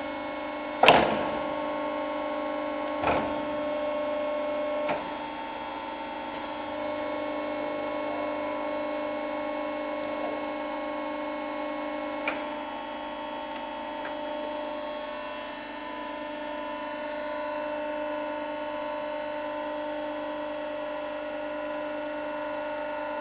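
Steady hum of a Davi plate bending roll running, several even tones held throughout. A loud metallic knock comes about a second in, and a lighter one follows about two seconds later.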